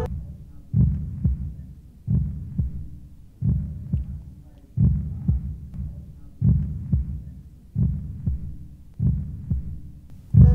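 Slow heartbeat sound effect: seven pairs of low thuds, lub-dub, about every second and a half, over a faint steady low hum. Plucked-string music comes back in right at the end.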